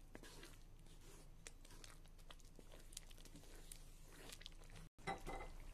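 Faint scattered scrapes and ticks of a wooden spatula stirring thick tomato and onion sauce in a wok, over a low steady hum. The sound drops out for an instant near the end, then a louder short scrape follows.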